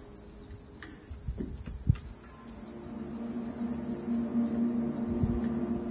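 Steady high-pitched insect chorus from the surrounding bush, with a brief low thump about two seconds in.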